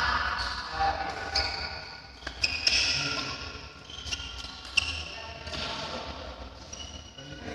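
Badminton hall between rallies: a few scattered sharp knocks and short high squeaks from court shoes and rackets on the wooden floor, echoing in the large hall, with faint voices.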